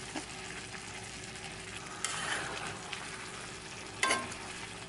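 Spicy lamb stew with glass noodles and tofu skin sizzling steadily in a wide enamelled braiser as it is stirred with a metal slotted spatula. There is a louder stir about two seconds in, and a sharp clink of the spatula on the pan about four seconds in.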